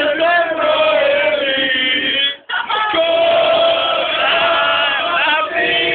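A group of people singing a song loudly together in unison, holding long notes, with a brief break about two and a half seconds in.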